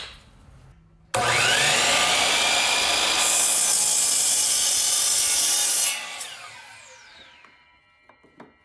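DeWalt DWS779 12-inch sliding miter saw with a 60-tooth blade: the motor starts about a second in with a rising whine, the blade cuts through a 2x4 for a few seconds, then the motor is released and winds down with a falling whine, followed by a few light clicks.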